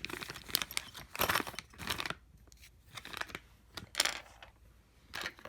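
Thin plastic film or paper being handled: irregular crinkling and tearing, with a few sharp clicks and short pauses between.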